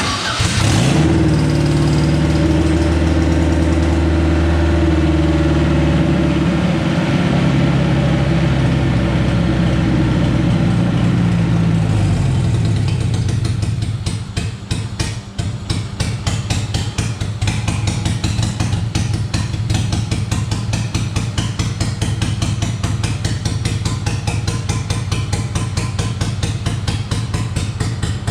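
A Honda K20 inline-four engine fires up and runs at a fast idle. About 13 s in, the idle drops and the engine runs unevenly, pulsing; the owners put the rough running down to old, bad fuel.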